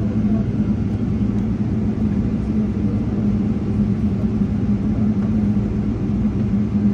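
Boeing 777 passenger cabin noise during taxi: a steady low rumble of the jet engines at taxi power, with a steady hum, heard from inside the cabin.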